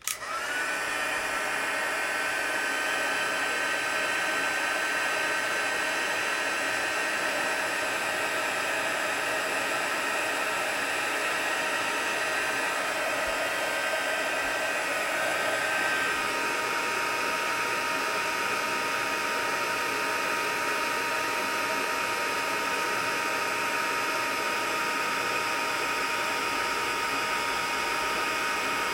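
Embossing heat tool switched on, its fan motor spinning up with a brief rising whine, then running steadily with a whir and rushing air as it melts the embossing powder. The whine drops slightly in pitch about halfway through.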